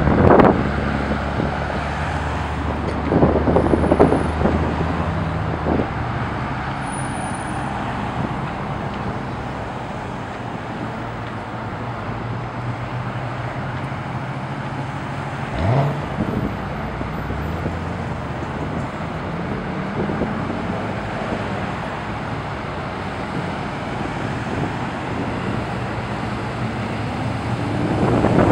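Corvettes passing at low speed in a slow line, engines running steadily under the road and tyre noise. One engine's note rises briefly about halfway through.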